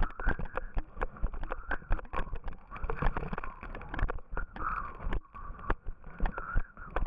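A yooner sit-sled's single ski scraping down a snowy piste, with many irregular sharp knocks and jolts as it rides over bumps in the snow.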